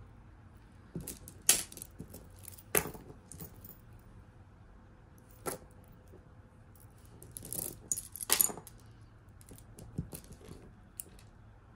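Costume jewelry clinking and jingling as a faux pearl necklace is handled: scattered short clicks and rattles, busiest about eight seconds in.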